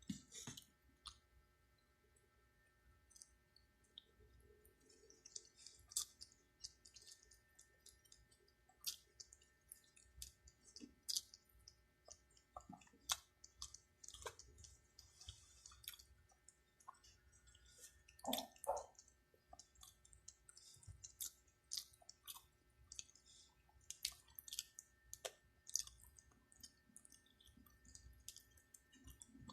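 Faint eating sounds from a person eating chicken curry: chewing, with many short wet clicks and mouth smacks scattered irregularly throughout.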